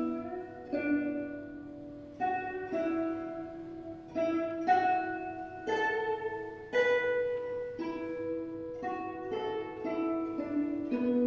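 Guzheng (Chinese zither) played as a slow melody of single plucked notes, each starting sharply and ringing as it fades, with a new note about every second.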